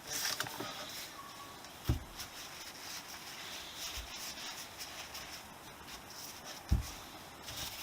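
Hands working on motorcycle fork parts: irregular scraping and rustling, with two dull thumps, about two seconds in and near the end.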